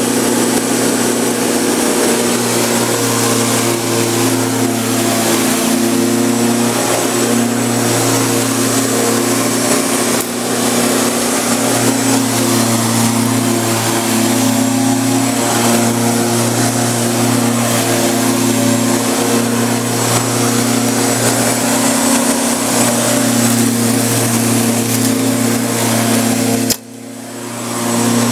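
Gardena PowerMax 32E corded electric lawn mower running and cutting grass: a steady motor and blade hum. The sound drops away abruptly near the end and comes back about a second later.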